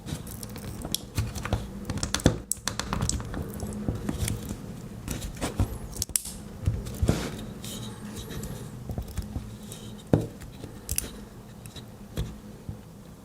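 Small plastic headphone parts being handled and pried apart: irregular sharp clicks, taps and short scrapes, with a faint steady low hum behind.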